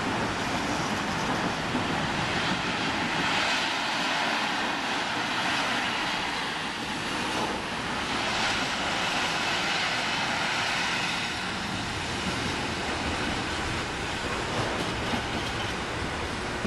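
Container wagons of a freight train rolling past on the track, a steady noise of wheels running on the rails.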